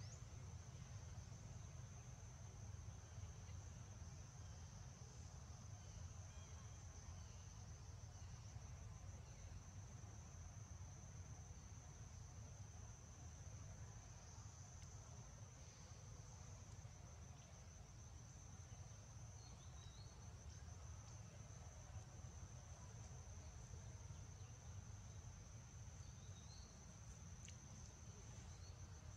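Faint, steady high-pitched insect drone of crickets or similar insects, unbroken throughout, over a low rumble.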